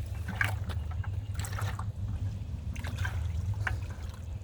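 Water being poured into a bucket, splashing in irregular spurts, under a steady low rumble.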